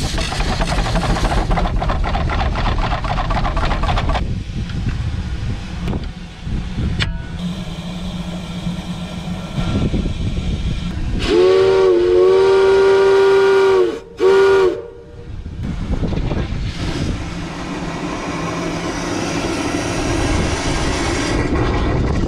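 Steam whistle on a 3/4-scale Case 65 hp steam traction engine blown by its pull cord: one long blast of about two and a half seconds, then a short one. Under it the engine runs with a steady mechanical clatter and hiss.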